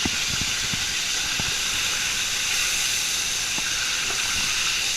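Hot olive oil and chicken grease sizzling in a frying pan on the stove: a steady hiss with scattered small pops and crackles.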